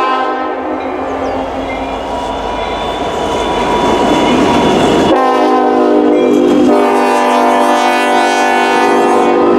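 Freight locomotive air horn sounding at a grade crossing. The horn fades out after a couple of seconds, leaving the rumble and clatter of the train rolling over the rails. A new, loud horn blast starts suddenly about five seconds in and holds on.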